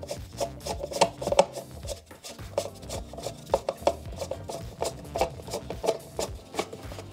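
Hands assembling a wooden IKEA Ektorp armchair frame: irregular clicks, knocks and scraping, a few a second, as fittings at the base of the frame are worked.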